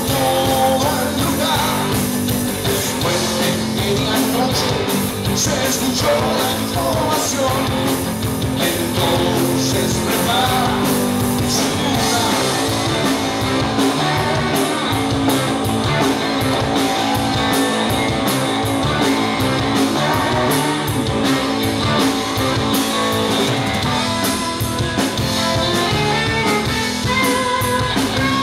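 Live rock band playing through stage amplification: distorted electric guitars, electric bass and a drum kit, with a male voice singing.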